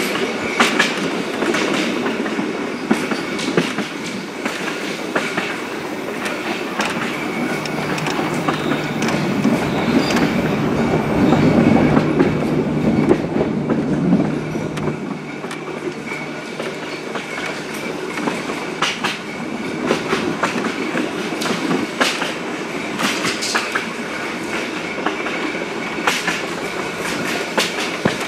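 Blackpool Transport 606, an English Electric tram, running along track: a continuous rumble of steel wheels on rail with scattered clicks over the rail joints. A low steady hum joins in about a quarter of the way through and stops about halfway.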